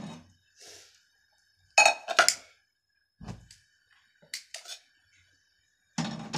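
Frying pan and plate clinking and knocking against the metal grate of a small gas stove as the pan is lifted off and set back on: a loud cluster of clinks about two seconds in, a dull knock, then scattered lighter clicks.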